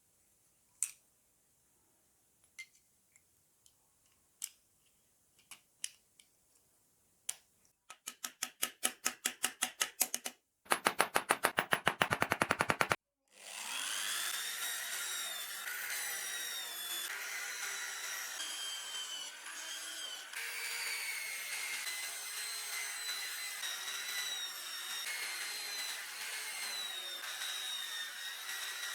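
Scattered sharp metal clicks, then two runs of rapid even ticking, the second faster, then a small high-pitched power tool running steadily for about fifteen seconds, its pitch shifting now and then.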